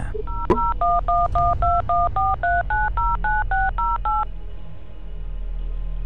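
Telephone keypad dialing a number: a rapid string of DTMF touch-tone beeps, about four a second, each a pair of tones. It stops about four seconds in.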